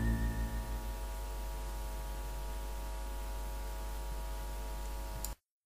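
The last notes of a Russian chanson ballad die away within the first second, leaving a steady low hum with hiss that cuts off abruptly to silence near the end.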